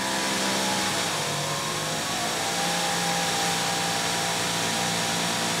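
Greenworks Pro 3000 PSI electric pressure washer running with the trigger held: its brushless induction motor and pump hum under the loud hiss of water forced through a pressure-gauge nozzle. The hum's pitch dips slightly about a second in, then holds steady as the pressure settles.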